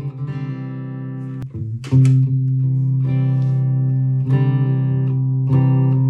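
Latitude Lark Telecaster-style solid-body electric guitar played through a Fender GTX100 amp: chords and single notes ringing on, with a sharp strummed chord about two seconds in, the loudest moment, and fresh notes picked near the end.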